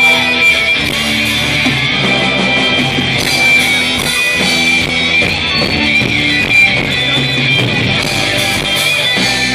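Rock band playing live through stage amplifiers, with electric guitars to the fore.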